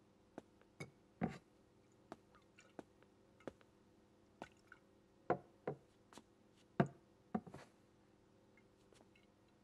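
Faint, irregular knocks and clinks of glass tumblers and a liquor bottle handled on a tabletop, with small drips of liquid. The sharpest clinks come a little over a second in and around five and seven seconds.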